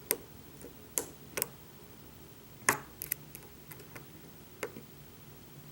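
Lock pick working the pins of a pin-tumbler challenge lock: a handful of sharp, separate clicks at uneven intervals.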